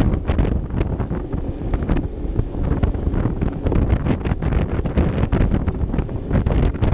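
Wind buffeting the microphone in uneven gusts on a moving Vespa LXV 150 scooter, with the scooter's engine and road noise underneath.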